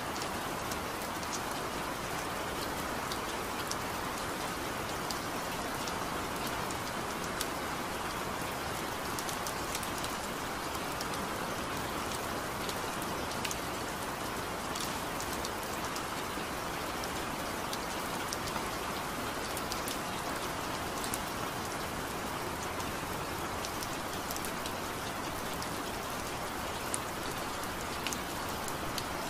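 Steady rain falling, a continuous even patter with scattered sharper drop ticks throughout.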